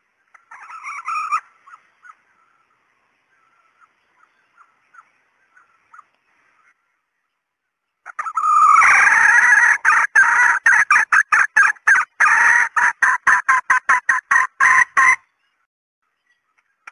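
Female red junglefowl calling: a short call about half a second in, then a loud, fast series of repeated notes starting about eight seconds in and cutting off about seven seconds later.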